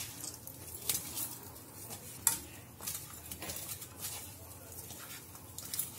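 Hands squishing and kneading a damp flour dough in a stainless steel bowl, with a few scattered light clicks and knocks against the metal bowl.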